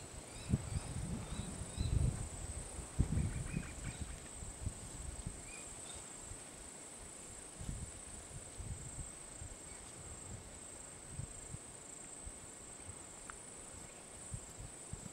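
Insects making a steady high-pitched trill, with wind gusting on the microphone in low rumbles that are strongest in the first few seconds.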